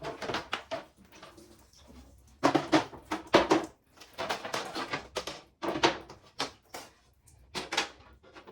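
Irregular knocks and clatters of removable fridge parts being handled and washed, in several quick clusters.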